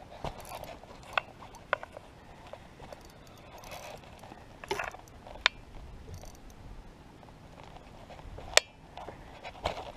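Scattered light clicks and knocks from a spinning rod and reel being worked while a hooked bass is reeled in, with one sharper click near the end.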